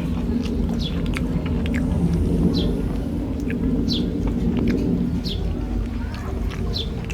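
A bird chirping a short falling note about every second and a half, over a steady low rumble, with a few small clicks.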